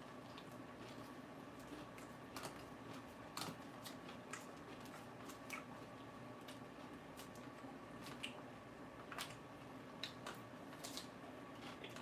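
Lettuce being chewed: faint, irregular crisp crunches and mouth clicks, over a steady low room hum.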